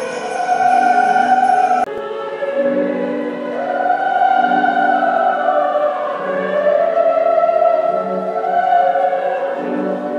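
Sound-and-light-show soundtrack played over loudspeakers: choral, operatic music with orchestra, a choir holding long slow notes. A high jingling layer of bells stops abruptly about two seconds in.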